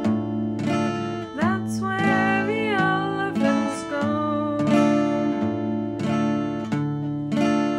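Acoustic guitar strummed in a steady rhythm of about three strokes every two seconds, with a voice singing a phrase of a simple children's call-and-response song from about one and a half seconds in.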